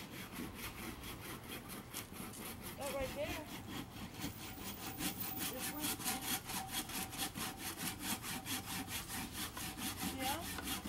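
Wood being cut with a hand saw in quick, even back-and-forth strokes.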